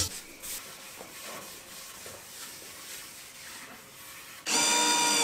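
A cloth rubbing finish into a solid oak tabletop: a faint, steady rubbing hiss. About four and a half seconds in, a cordless drill starts running steadily and much louder.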